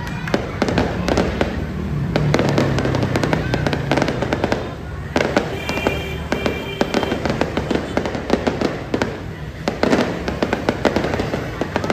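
Aerial firework shells bursting one after another in a dense run of bangs and crackles, with a brief lull about five seconds in.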